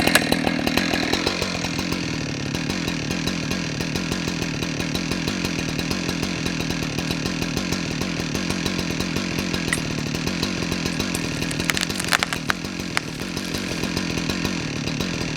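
Husqvarna 365 two-stroke chainsaw running steadily at high revs while cutting into a tree trunk, with a few sharp cracks about twelve seconds in.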